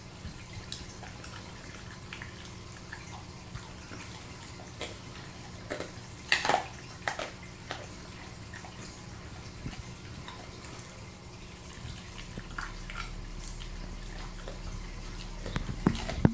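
A Rottweiler chewing and gnawing a piece of raw chicken: irregular short clicks and crunches, with a louder cluster about six seconds in and another near the end, over a steady low hum.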